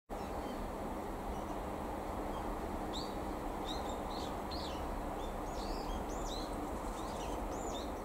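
A small bird chirping: a string of short, high, arching calls starting about three seconds in, over a steady low outdoor background rumble.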